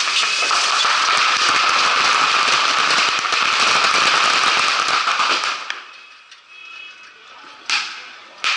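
Dense barrage of bottle rockets and firecrackers crackling and popping without a break for about five and a half seconds, then cutting off. Two sharp single bangs follow near the end.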